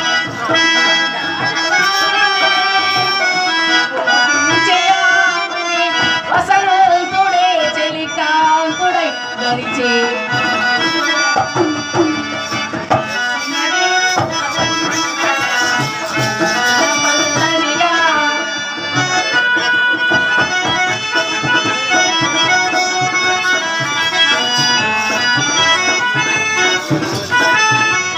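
Harmonium playing a sustained melody over tabla drumming, the instrumental accompaniment of a Telugu stage drama.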